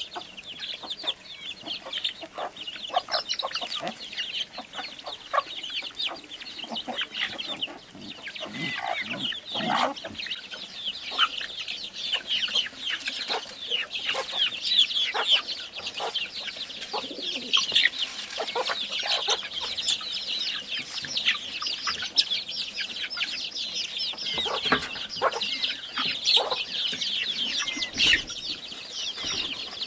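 Chickens calling: many short high peeps overlapping without a break, with a few lower clucks here and there.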